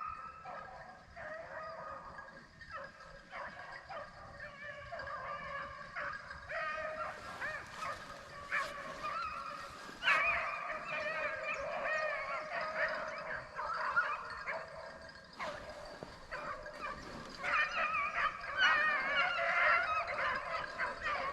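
A pack of rabbit dogs baying in chorus as they run a rabbit's trail, many wavering voices overlapping, growing louder from about halfway through.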